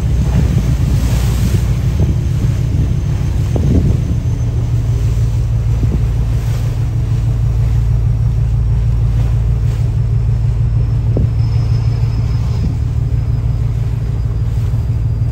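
Boat engine running steadily under way, a constant low hum, with water splashing a few times and wind buffeting the microphone.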